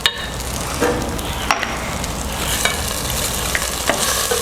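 Chopped onion and garlic sizzling in oil in a cooking pot while being stirred, with a steady frying hiss and a utensil clicking against the pot several times.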